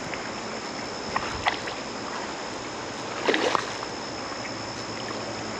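River water running steadily, with a few short splashes, the loudest cluster about three seconds in, as a hooked smallmouth bass thrashes at the surface while being played in.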